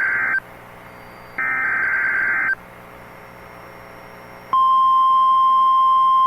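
Emergency alert SAME data header: one burst of warbling digital tones ends just after the start and a second runs about a second from 1.5 s in. At about 4.5 s the steady 1050 Hz NOAA Weather Radio warning alarm tone begins, announcing a new tornado warning.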